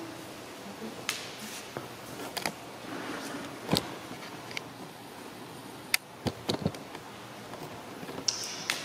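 Quiet church interior with about a dozen short, scattered clicks and knocks of people moving about and handling things at the lectern, the loudest about four seconds in and again around six seconds.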